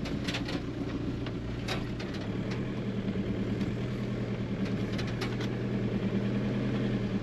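Diesel engine of a van running at low speed, a steady hum with a few light clicks and rattles; the engine note rises slightly about two seconds in.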